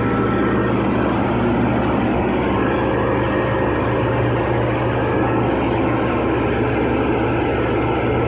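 Belt-driven 37 kW industrial air compressor running steadily on test, a constant mechanical drone with a deep, even hum underneath.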